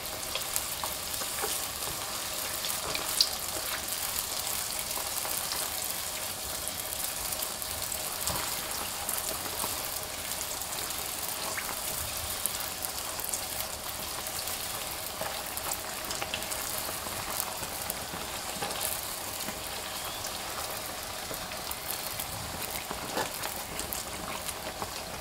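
Youtiao dough sticks deep-frying in hot oil over medium-high heat: a steady sizzle and bubbling with many small crackles as the dough puffs up. A single sharper click stands out about three seconds in.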